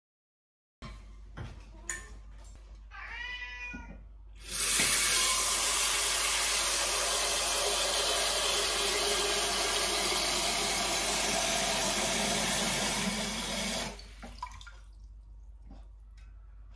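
A cat meows once, then a kitchen tap runs at full flow into a stainless steel saucepan for about nine seconds and is shut off abruptly, with a few light knocks of the pan before and after.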